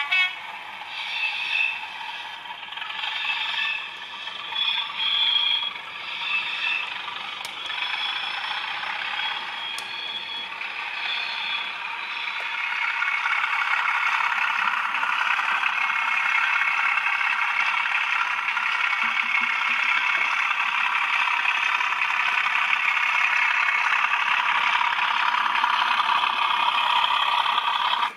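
Bachmann OO gauge Class 37 model locomotive with a South West Digital sound decoder: its recorded diesel engine sound played through the model's small speaker, mixed with the mechanical rattle of the model train running on track. About twelve seconds in, the sound becomes louder and steadier.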